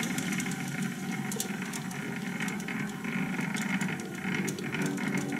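YZ-210D mini metal lathe (WM210V type) running as its spindle speed is turned down from a few hundred rpm to about 50 rpm. The motor drive grows quieter, and irregular rattling and ticking from the headstock come through plainly at the low speed.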